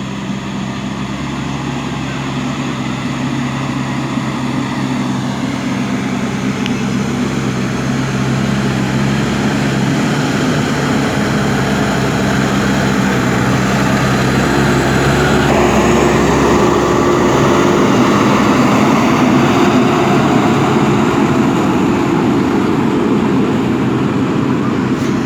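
Backhoe loader's diesel engine running steadily, then working harder about fifteen seconds in, its note changing and growing louder and noisier as the machine takes load.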